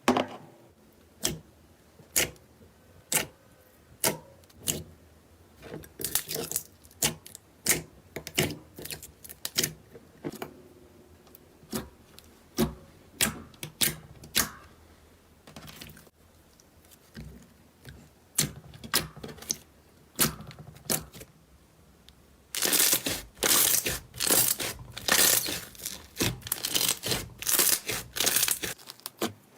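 Slime being squeezed and pressed by hand: sharp pops about once a second at first, then denser clusters of crackling, and loud continuous crunchy crackling over the last seven seconds.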